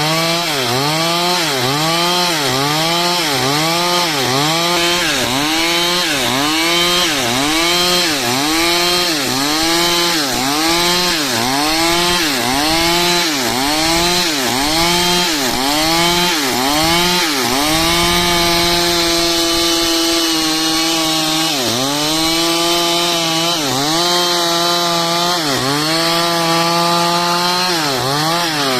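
Stihl two-stroke chainsaw cutting dry wood: the engine's pitch dips and recovers about once a second as the bar is worked through the cut under load. Past the middle it holds a steady pitch for a few seconds, then the rhythmic dips return.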